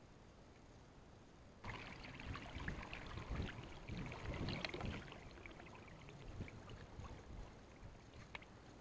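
Water splashing and sloshing, starting suddenly about two seconds in with many small splashes and crackles, loudest for a few seconds and then easing off.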